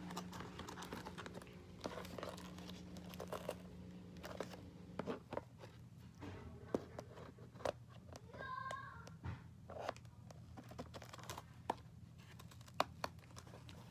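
Cardboard and plastic toy packaging being handled and cut with scissors: crinkling and rustling, broken by scattered sharp clicks.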